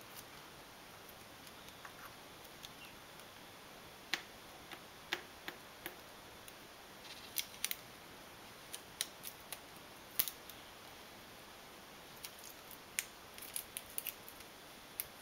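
Irregular small sharp clicks and crackles, some in quick pairs, as fingers press a mylar sheet down onto solar cells on an assembly plate.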